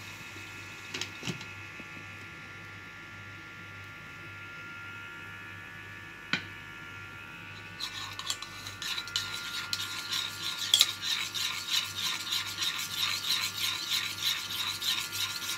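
A spoon beating yogurt smooth in a plastic bowl: quick, rhythmic scraping strokes, several a second, starting about eight seconds in. Before that, a few sharp clicks of cookware sound over a steady faint hum.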